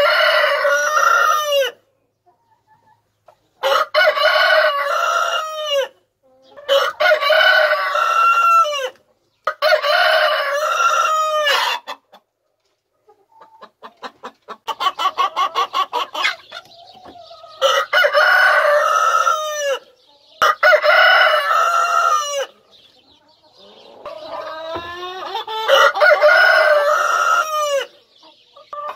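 Rooster crowing over and over, about seven crows of roughly two seconds each with short gaps between, and hens clucking. About halfway through comes a fast run of short clucks.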